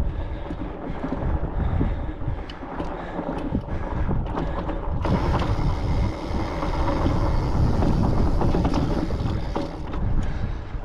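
Wind buffeting the microphone on a fat-tyre mountain bike riding over slickrock, with tyre rumble on the rock and scattered clicks and rattles from the bike. About five seconds in a brighter hiss comes in over it, and it cuts off suddenly about five seconds later.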